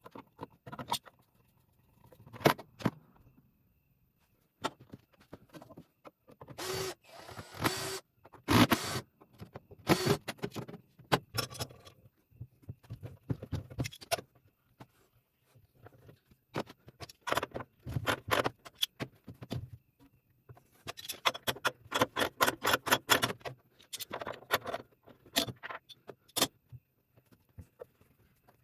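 Metal clanks, knocks and scrapes from hand work on a steel boiler, irregular, with a spell of rapid repeated strokes about two-thirds of the way through.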